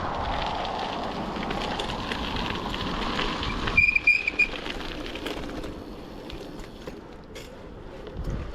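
A bicycle being ridden, with rushing wind and tyre noise on the microphone. About four seconds in the rush stops abruptly and a short high squeal sounds, followed by quieter scattered clicks.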